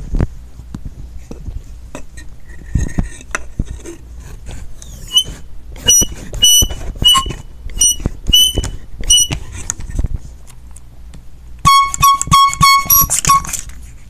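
Handheld canned air horn sputtering: instead of a full blast it gives a string of short, high squeaks and then a quick run of about six lower toots, with clicks and knocks of handling in between. The horn is failing, and its owner thinks it is broken.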